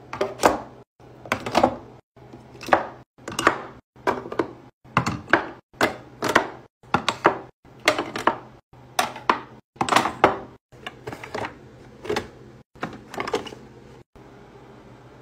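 Skincare jars and dropper bottles being set down and pushed into place on a shelf and in a drawer organizer: a run of sharp knocks and clinks, one or two a second and often in quick pairs, that stops about fourteen seconds in.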